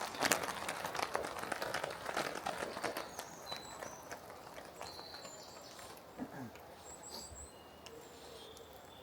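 Small birds chirping and calling in short high notes, over a run of clicks and knocks in the first three seconds that then thin out.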